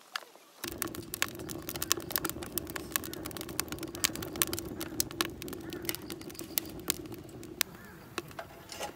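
Wood fire burning in a stainless-steel rocket stove's feed tube: a dense run of crackles and pops over a steady rush, starting about half a second in.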